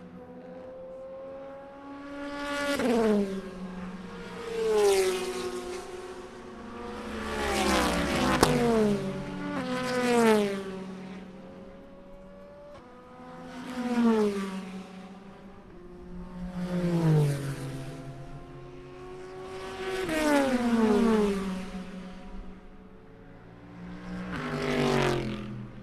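Race cars at the Le Mans 24 Hours passing one after another, about eight in all, each engine note rising in loudness and then dropping in pitch as it goes by, with other cars droning between passes.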